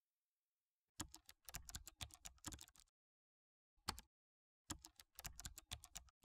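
Typing on a computer keyboard: a run of quick keystrokes starting about a second in, a single key press, then another run of keystrokes near the end.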